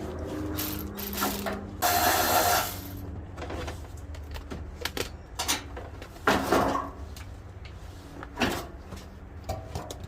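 Ratchet wrench clicking in short bursts as a 10 mm fender bolt is backed out. The two longest bursts come about two seconds in and again past the middle, with scattered single clicks between them.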